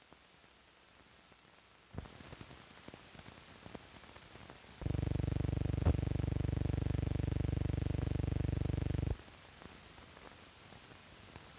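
Film soundtrack noise from the blank end leader of the reel: hiss and crackle that starts with a click about 2 seconds in, then a loud low buzz for about four seconds with a sharp click partway through, dropping back to hiss.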